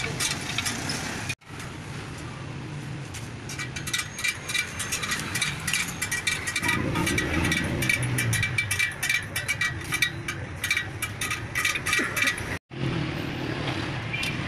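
Spokes of a motorcycle wire wheel being tightened on a truing stand: rapid, irregular metallic clicking and light ringing from the spoke wrench and spokes, over steady traffic noise.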